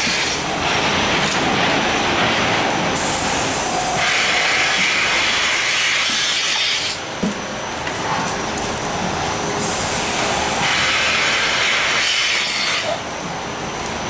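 Rotary milking parlour machinery running with a loud steady hiss of vacuum air that swells for stretches of a few seconds as milking cups are put on the cows' teats.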